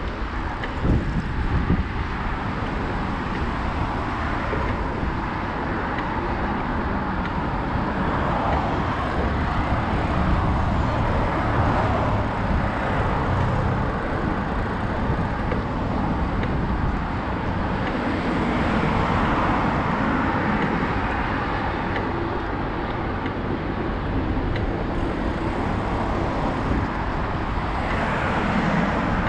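Steady road-traffic noise from cars on the multi-lane road beside the path, swelling now and then as vehicles pass.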